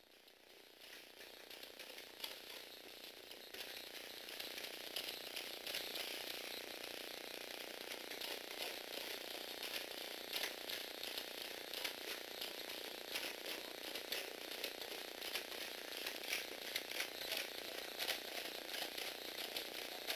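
Lego Technic biped robot walking: its Power Functions motor whirring through plastic gears, with a fast, irregular clatter of plastic clicks. It grows louder over the first few seconds, then runs steadily.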